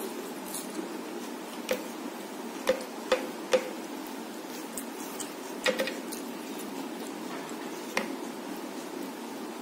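Fingers tapping and scraping on a ceramic plate while gathering rice by hand, making about eight scattered sharp clicks over a steady hiss. The loudest three clicks come close together about three seconds in.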